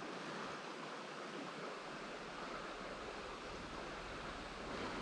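Creek water running steadily over rocks, a constant rushing hiss.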